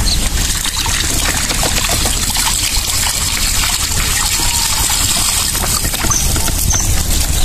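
Water trickling and dripping off a square lift net as it is raised out of a pond, with many small irregular splashes.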